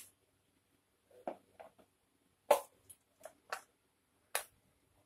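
Plastic tricycle wheel and hub parts clicking and knocking against a metal axle as they are handled and fitted: about six short, sharp knocks, the loudest about halfway through.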